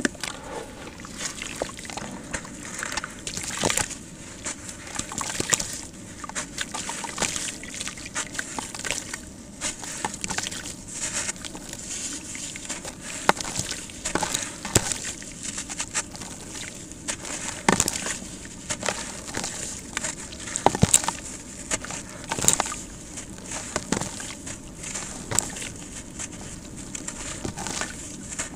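Gritty sand-cement crumbling and breaking up into water, with many irregular sharp cracks and crunches amid wet noise.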